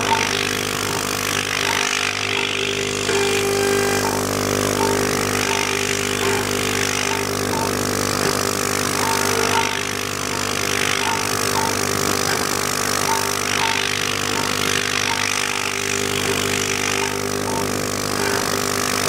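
Spindle of a cheap 6040 CNC router running with a steady whine while its end mill cuts 5 mm aluminium plate at a 2000 mm/min feed, the cutting hiss swelling and fading every second or two. Small regular ticks sound about once a second.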